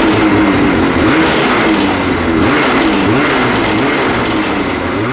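Ski-Doo Summit X snowmobile's two-stroke engine running with the rubber track spinning freely off the ground. The engine speed wavers up and down slightly.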